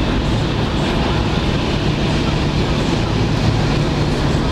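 Steady cabin noise of a vehicle driving at motorway speed: a low engine hum under an even rush of tyre and road noise.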